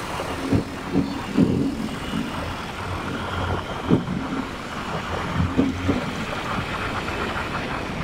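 Motorcycle riding along a road: its engine runs steadily under road and wind noise, with wind buffeting the microphone in several short gusts.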